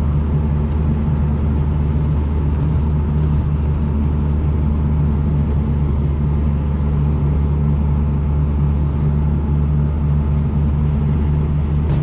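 Car driving along a road, heard from inside the cabin: a steady low drone of engine and road noise.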